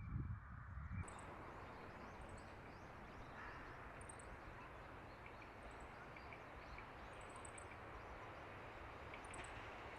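Faint outdoor ambience with a small bird chirping, short high notes in quick clusters of two to four every second or two. A brief low rumble sounds in the first second.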